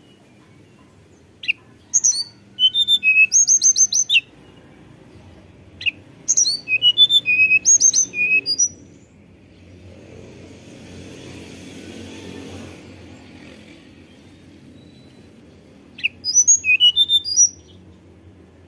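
Hill blue flycatcher singing in a fluting whistle: three phrases of quick, high, slurred notes, about a second and a half in, around six seconds in and near the end.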